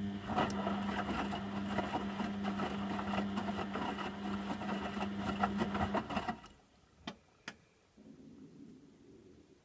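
Beko washing machine's drum motor humming as it turns the drum through a 60°C cottons wash, with the wet laundry and water tumbling in a dense rapid patter. The drum stops about six seconds in, followed by two sharp clicks and a faint low hum.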